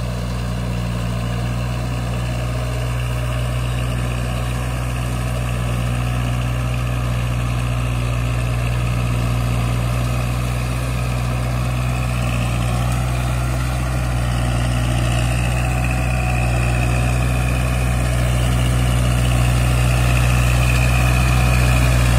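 Kubota MU4501 tractor's four-cylinder diesel engine running steadily under load while it pulls a rotavator puddling a flooded paddy, growing louder as the tractor comes closer. A high whine comes in about halfway through.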